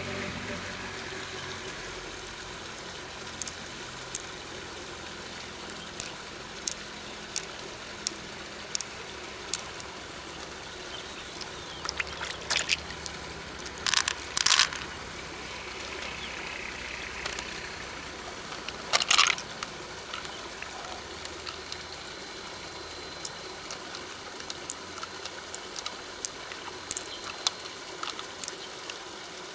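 Trickling river water with scattered light clicks, and a few short louder bursts of crackling or scraping about 12, 14 and 19 seconds in.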